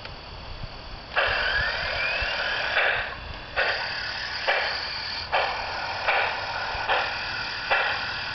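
Large-scale garden-railway model steam locomotive's onboard sound unit playing steam-exhaust chuffs as the engine moves, starting about a second in and repeating a little faster than once a second.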